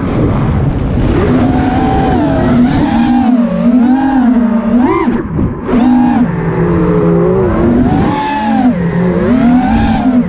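FPV quadcopter's brushless motors and propellers whining, the pitch swooping up and down constantly with throttle changes, with a brief drop in throttle about five seconds in before it climbs again.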